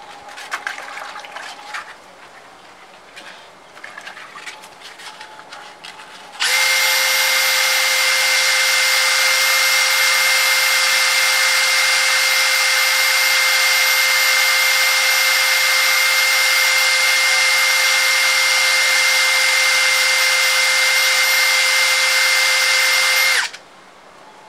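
Cordless Makita drill running at a steady speed, spinning a Yamaha Axis 90 clutch pulley against hand-held sandpaper to sand scratches off its belt face: a steady whine with a sanding hiss. It starts a few seconds in, after some light handling clicks, and cuts off suddenly near the end.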